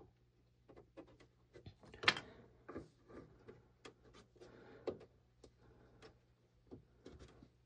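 Faint scattered clicks, taps and light rubbing of plastic model-kit parts being handled and pressed into place as a dormer is glued on, with the loudest knock about two seconds in and another near five seconds.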